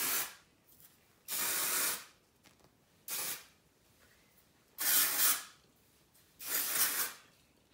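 Aerosol can of Klorane dry shampoo spraying onto hair in five short hissing bursts, each about half a second to a second long, from a nearly empty can.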